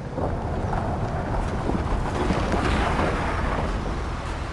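A rushing, wind-like noise over a steady low rumble, swelling to a peak about halfway through and easing off toward the end.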